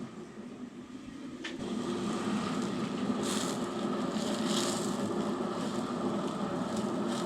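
Stovetop noise of a pot of spaghetti at the boil over the burner: a click about a second and a half in, then a steady rushing noise with a low hum.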